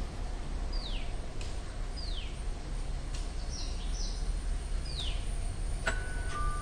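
Birds calling with a short falling whistle, repeated every second or so over a steady low background rumble. Near the end a click is followed by a two-note electronic doorbell chime, a higher tone stepping down to a lower one.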